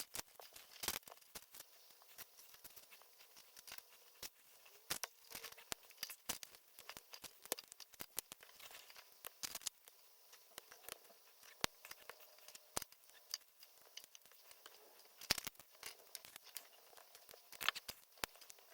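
Faint, irregular small clicks and rustles of LEGO plastic pieces and their bags being handled during a build.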